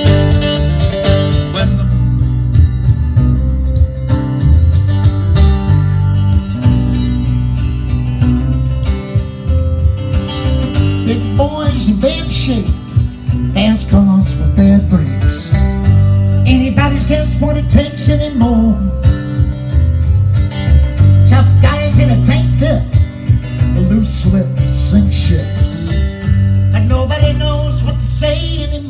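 A live band plays a country-flavoured song on electric bass guitar and guitar, with a steady, prominent bass line. A man's singing voice comes in over the instruments in stretches.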